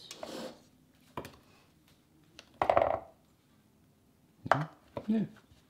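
Scattered clinks and knocks of a scoop against a metal muffin tin and a steel mixing bowl as cauliflower-cheese mixture is portioned into the cups and pressed down, a few separate sounds with quiet gaps between them.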